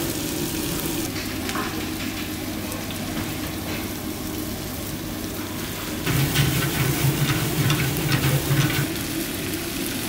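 Meat, potatoes and vegetables frying and sizzling in a hot wok for fried lagman, stirred with a metal ladle. Past the middle the ladle clatters more against the wok, and a steady low hum comes in for a few seconds.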